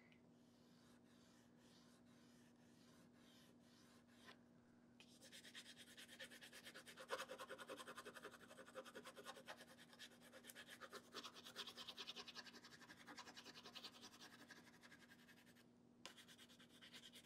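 Caran d'Ache Neocolor II wax pastel scribbled across painted mixed media paper: soft, rapid scratching of quick back-and-forth strokes. It starts about five seconds in, after a few faint ticks, and pauses briefly near the end.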